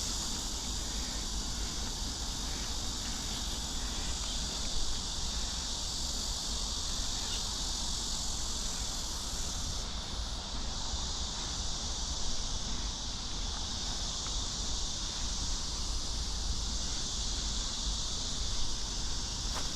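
Steady high-pitched insect chorus, a continuous buzzing drone that holds unchanged throughout.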